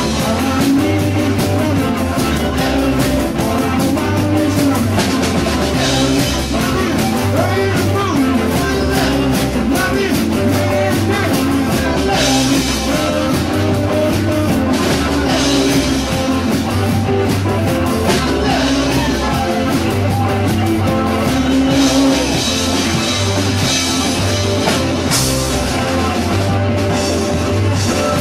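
Live rock-and-roll band playing loudly: a drummer on a drum kit with crashing cymbals, with electric guitars and bass guitar.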